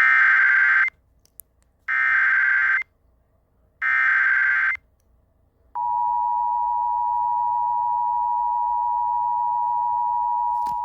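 Emergency Alert System header: three short bursts of screechy SAME digital data, each just under a second with about a second between them. About six seconds in the steady two-tone EAS attention signal starts and holds, announcing a flash flood warning.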